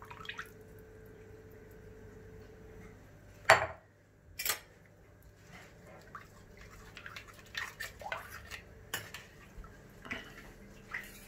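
Kitchen dishes and metal utensils clinking: one sharp, loud clink about three and a half seconds in, another a second later, then lighter scattered clatter toward the end.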